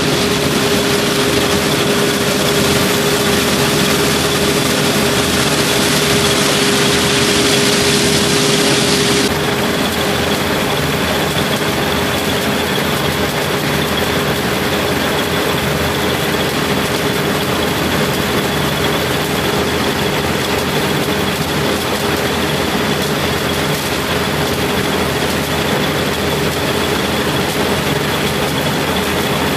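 Claas Dominator 78 combine harvester running steadily under load while harvesting corn, a loud continuous engine and machinery drone with a steady whine. About nine seconds in the sound changes abruptly, as a strong steady hum and some of the high hiss drop out.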